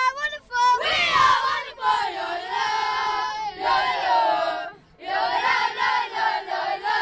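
A group of young boys loudly singing their football team's chant together, phrase after phrase, with a short break about five seconds in.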